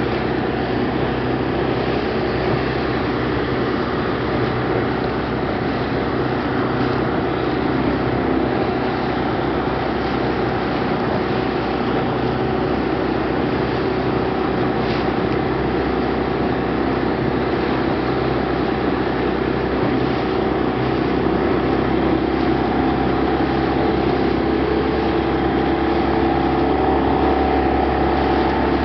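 Steady drone of the machinery aboard the training vessel KM. Madidihang 03, a constant mechanical hum with several held tones. It grows slightly louder near the end.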